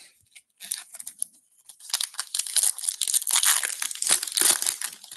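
Foil wrapper of a Topps baseball card pack being torn open and crinkled by hand: a dense crackling that starts under a second in and is loudest in the second half.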